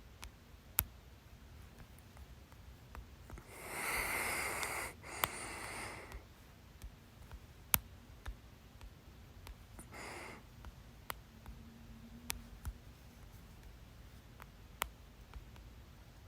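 A person with hiccups breathing heavily: a long breath of about two and a half seconds starting about three and a half seconds in, and a shorter one near ten seconds. Sharp, very short clicks come about every two seconds between them.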